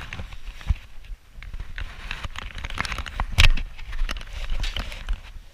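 Rustling and irregular knocks from a handheld camera being moved and handled, with a sharp knock right at the start and a louder one about three and a half seconds in.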